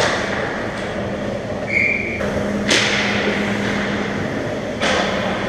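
Ice hockey play in a rink: skates scraping and sticks clattering over a steady din, with a short high call a little under two seconds in and two sharp cracks, the louder one about halfway through and another near the end.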